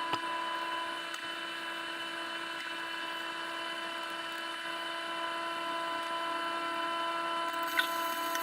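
A small electric motor running at a steady speed with a high whine, switched on and off abruptly, with a couple of sharp clicks near the end.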